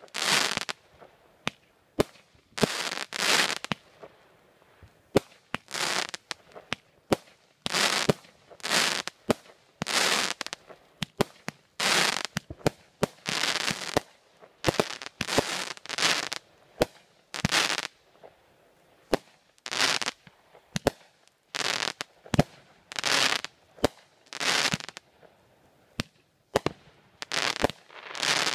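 Aerial fireworks going off in quick succession: a string of hissing shots, each lasting about half a second to a second and coming roughly every second and a half, with sharp cracks and pops between them.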